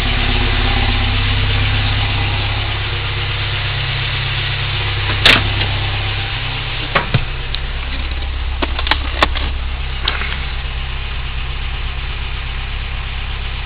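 Toyota 22RE four-cylinder engine running as the 4Runner is driven, heard from inside the cab: a steady low drone that drops lower about six to seven seconds in, with a sharp click about five seconds in and a few lighter clicks after. The owner suspects a misfire.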